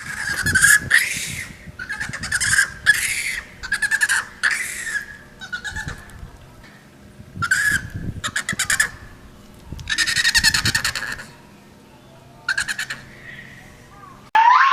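Monkey calling in repeated bursts: high, squeaky calls mixed with fast chattering runs, with short pauses between them.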